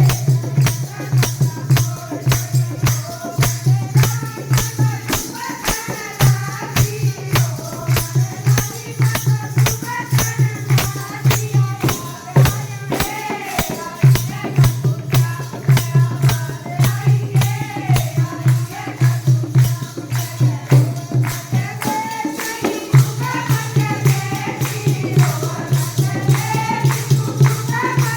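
Haryanvi devotional bhajan music: a fast, steady beat with jingling tambourine-like percussion and a pulsing low bass, under a wavering sung or played melody. The low pulse drops out briefly a few times.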